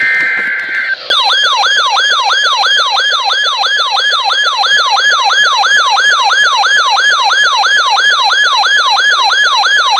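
Electronic weather-radio alert tone: about a second of buzzy data tones, then a loud, fast siren-like wail of falling sweeps repeating about three times a second, announcing a new alert.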